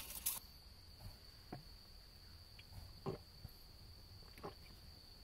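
A few faint gulps as beer is drunk straight from the bottle, over a steady, faint high-pitched whine.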